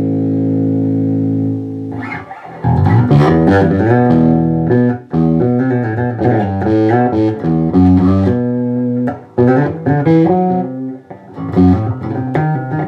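Custom-built electric bass with passive Seymour Duncan pickups being played: a held note rings for about two seconds, then a run of quick plucked notes follows.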